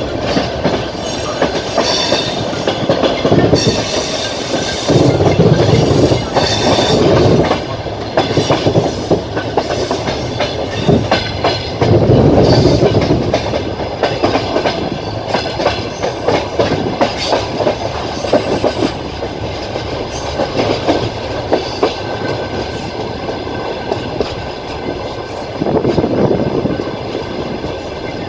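Passenger train carriage running on the rails: wheels clattering over rail joints with a steady rumble and repeated sharp clicks, and now and then a faint high wheel squeal. It is heard from the carriage window.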